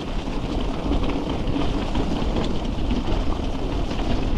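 Mountain bike rolling fast over a rough, wet trail: a steady low rumble of tyres and wind on the action camera's microphone, with continuous rattling of the bike.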